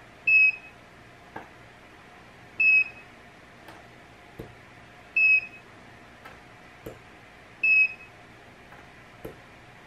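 Battery-powered handheld spot welder beeping four times, a short high beep about every two and a half seconds, as it fires weld pulses through its copper probes into a nickel strip on battery cells. Soft sharp clicks sound between the beeps.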